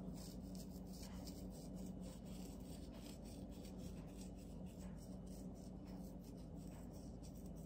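Dried herbs and salt rubbed between fingertips and sprinkled over halved tomatoes: a faint, dry rustling with soft crackly ticks throughout, over a low steady hum.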